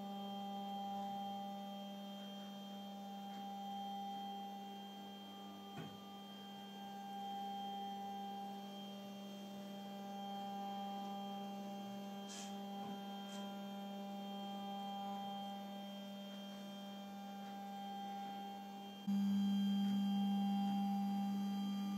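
Stepper motor of a V-Slot Mini V linear actuator, driven by an A4988 stepper driver, humming at one steady pitch as it runs the gantry plate along the rail. The hum rises and falls slowly with the travel, with a few faint ticks, and gets louder near the end.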